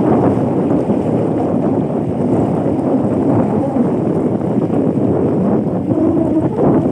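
Steady, loud wind rumble buffeting the microphone out on the water, mixed with the noise of a boat.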